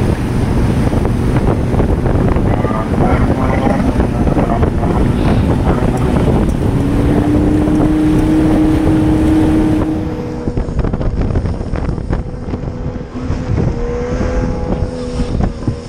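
Inshore lifeboat's outboard engine running through churning, choppy water, with wind on the microphone. About ten seconds in, a steady engine note gives way to the boat running at speed, the hull pounding through waves and throwing spray.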